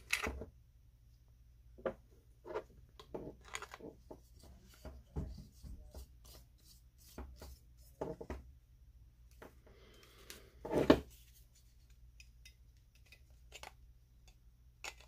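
Handling noise from a Dremel 4000 rotary tool and its black plastic guide attachment: scattered plastic clicks, taps and light scrapes as the nose cap comes off and the attachment is fitted on. The loudest knock comes about eleven seconds in. The tool itself is not running.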